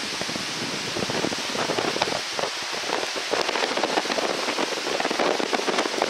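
Muddy, flood-swollen river after a typhoon, rushing and churning in whirlpools below a bridge: a steady, dense rush of water full of fine crackles.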